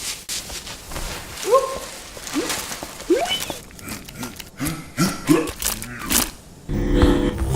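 Dubbed-in comedy sound effects: a string of short, rising squeaky whoops among clicks and rustles, then a low steady hum comes in near the end.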